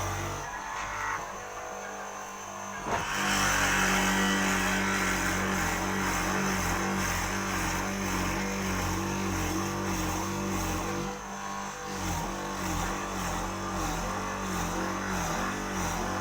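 Electric motor of a wood mortising machine switching on with a click about three seconds in, then running steadily with a slightly wavering pitch.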